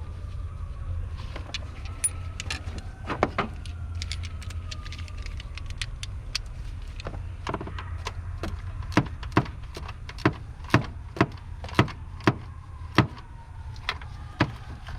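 Sharp metallic clinks and taps of hand tools on car parts during a starter replacement, a few scattered early on, then a run of loud taps about two a second through the second half, over a steady low rumble.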